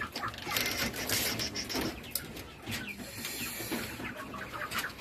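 Scratchy rustling and light clicks of animals moving about on and under a wire-mesh cage floor, with faint hen clucks now and then.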